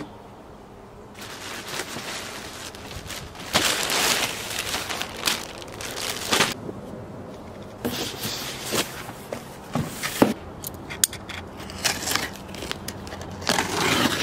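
Parcels being unpacked by hand: plastic packaging crinkling and rustling, and cardboard boxes scraping and knocking as they are handled and opened, in irregular bursts with sharp clicks.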